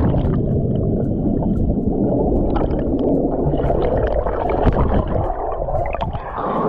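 Underwater gurgling and bubbling of river water, muffled, with the high end cut off and scattered small clicks, as when a jumper plunges in.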